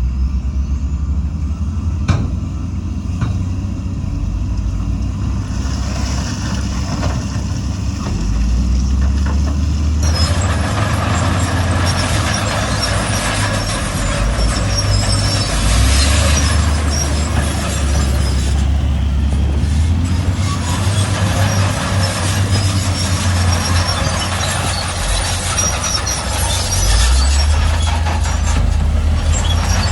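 Heavy diesel engines of earthmoving machinery running, the engine note stepping up and down several times as they work under load. About ten seconds in, a loud rushing hiss joins the engines.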